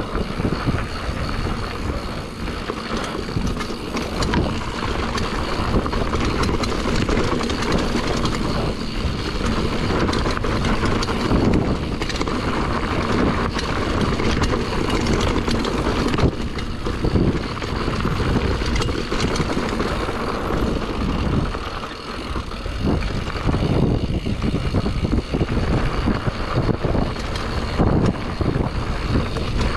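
Mountain bike riding fast down a rough enduro trail: wind rushing over the microphone, tyres on dirt and rock, and a continuous run of knocks and rattles from the bike over the bumps.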